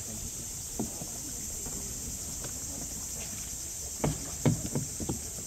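Steady high-pitched insect chorus, with a dull knock about a second in and a quick cluster of dull knocks near the end from kayak paddling.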